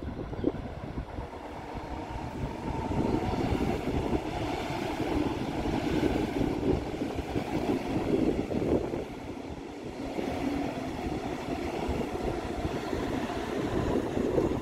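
A double-deck electric regional train in push-pull formation passing close by, its coaches rolling over the rails. The rolling noise swells about three seconds in and stays loud. It peaks again near the end as the locomotive at the rear goes past.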